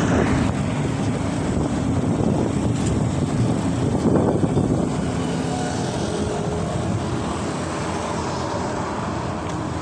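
Road traffic on a busy street: motorcycles, cars and a motor rickshaw passing in a steady rush of engine and tyre noise, with one vehicle going by louder about four seconds in.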